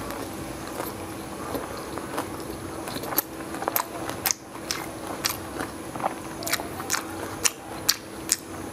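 A person chewing a mouthful of bánh xèo filled with papaya, bean sprouts and duck, picked up close on a clip-on microphone: wet chewing with irregular sharp mouth clicks and smacks that come more often from about three seconds in. A faint steady hum runs underneath.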